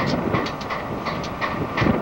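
Diesel freight locomotives passing close by, engines running under a haze of rumble, with their wheels clicking sharply over the rail joints several times a second.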